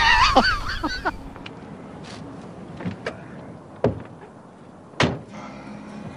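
A loud wavering, pitched sound breaks off about a second in. Then come a few knocks and clicks of a car door being handled, and a car door slams shut about five seconds in.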